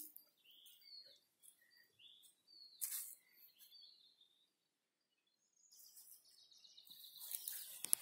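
Small birds giving short chirps and calls in the first half. From about two-thirds in, a rustling of grass brushed by footsteps builds up and is loudest near the end.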